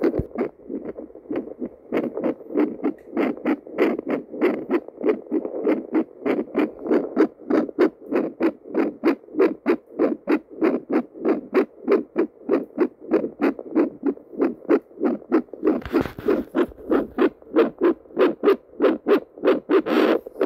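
A handheld pocket doppler's speaker plays a person's heartbeat as a steady run of whooshing pulses, about three a second. Near the end there is a brief rush of scraping noise.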